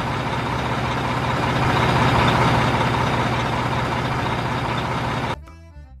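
Diesel engine of a large tour coach running, with a steady low pulse under a dense mechanical noise; it cuts off suddenly about five and a half seconds in.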